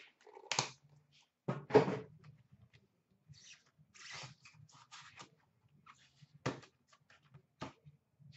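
Knocks and clicks of a hockey card box being handled and opened, the loudest a sharp knock about two seconds in, with a brief rustle of packaging in the middle.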